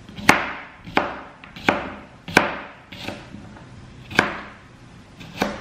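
Kitchen knife slicing a cucumber on a plastic cutting board: about six separate chops at an unhurried, uneven pace, each a sharp knock of the blade on the board.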